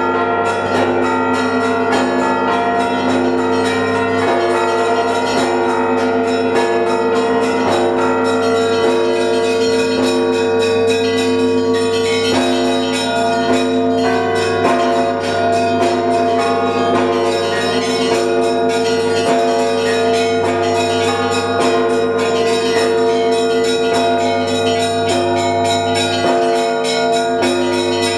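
Russian Orthodox monastery bells of the Trinity-Sergius Lavra rung together in a continuous peal to call to the evening service. Small bells are struck in quick, dense patterns over the sustained tones and low hum of the larger bells.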